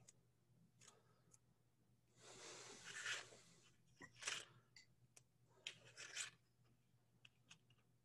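Faint rustling and crinkling of conductive maker tape and its wax-paper backing being peeled and handled, with a few small clicks.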